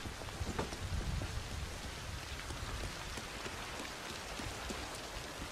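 Steady heavy rain falling and pattering on surfaces, with a few low thuds about a second in.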